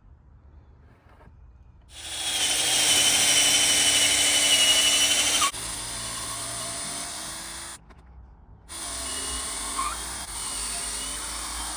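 Power drill running in two long runs while assembling wooden raised beds. It starts about two seconds in with a high whine, drops to a lower level a few seconds later, stops briefly, then runs again.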